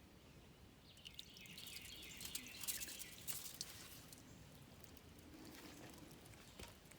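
Water dripping and splashing with many small clicks and rattles from a minnow basket being lifted and checked, strongest between about one and four seconds in, then fading to faint creek-side background.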